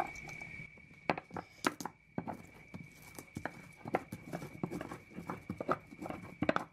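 Stone pestle (tejolote) crushing and grinding garlic and toasted spices in a volcanic-stone molcajete: irregular knocks and scrapes of stone on stone, several a second, starting about a second in. A faint steady high whine runs underneath.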